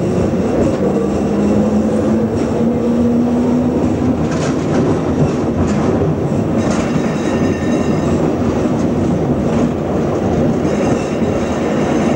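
Four-wheel tram running, heard from inside its cab: a motor whine rises in pitch over the first few seconds as it picks up speed, over a steady rumble of wheels on rail with scattered clicks over joints. A thin high squeal comes in about seven seconds in and again near the end.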